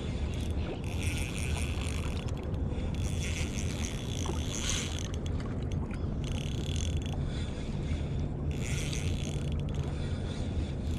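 Shimano Stradic Ci4+ 1000 spinning reel being cranked in short bouts of a second or two, with brief pauses between them, as a hooked fish is reeled in. A steady low rumble runs underneath.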